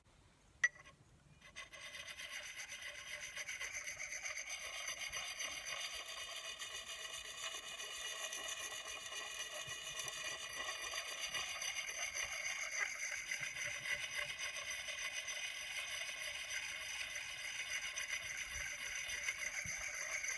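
A hand sharpening stone scraping steadily along a steel axe blade, honing the edge, with a ringing metallic tone in the rasp. A light clink comes just before the honing starts, about a second in.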